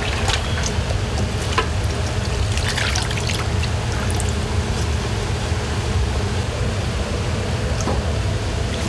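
Tap water running into a basin of rinse water. Boiled udon noodles are tipped in from a net strainer, splashing several times in the first few seconds. A steady low rumble runs underneath.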